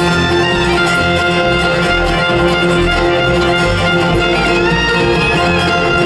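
A live bluegrass band playing an instrumental, with a fiddle carrying the lead over strummed guitar and a bass line that changes note about twice a second.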